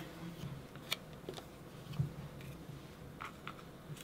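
Light clicks and taps from cardstock embellishments and foam adhesive squares being handled on a craft mat: a few short ticks, the sharpest about a second in and a soft thump about two seconds in, over faint room tone.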